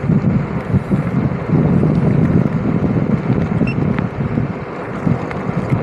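Strong wind buffeting the microphone: a loud, gusting low rumble that rises and falls, heavier from about a second and a half in.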